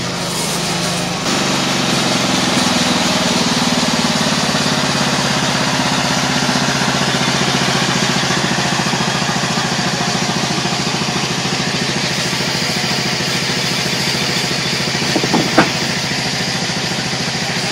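Engine of a homemade bandsaw mill running steadily, its note shifting about a second in and then holding even. Two sharp knocks sound close together about three-quarters of the way through.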